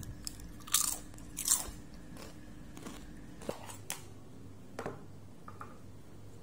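Biting and chewing thick, hard wavy potato chips: two loud crunches in the first two seconds, then a few smaller ones. A few faint knocks follow in the second half.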